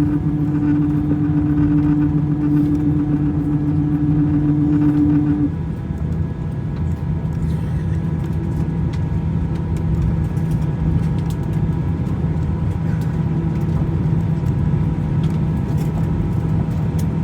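Jet airliner cabin noise by the window: a steady engine and airflow rumble with a humming tone. About five seconds in, the tone stops and the noise drops a little, then holds steady.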